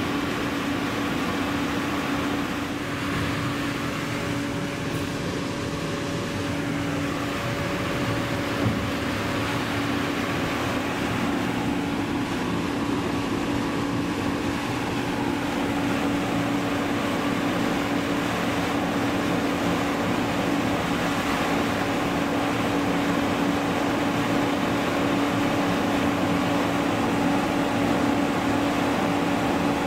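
Machinery running steadily: a constant mechanical drone with a steady hum over even noise, and one small knock about nine seconds in.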